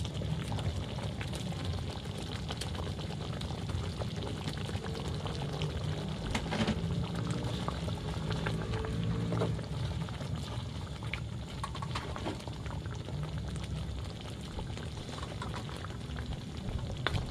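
Sweet-and-sour sauce boiling in a cooking pan, a steady bubbling.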